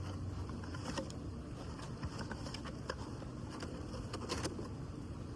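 A bee buzzing with a steady low hum, over scattered small clicks and taps.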